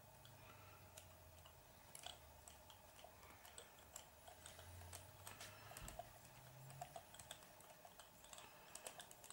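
Faint, irregular small clicks and taps of a hand hex driver and plastic and metal parts being handled while a screw is driven into a lock nut on an RC truck's rear bumper, the clicks coming more often after about five seconds, over a faint low hum.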